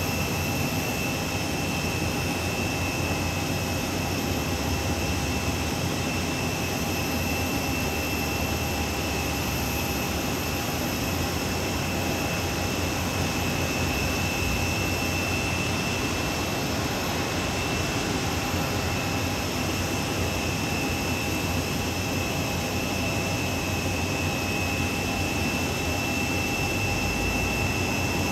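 Jet turbine whine and roar from an airliner at the gate, steady throughout, with a constant high-pitched whine over a broad rumble.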